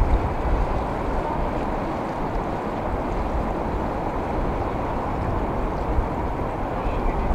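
Wind buffeting the microphone, a gusty low rumble, over the steady wash of ocean water.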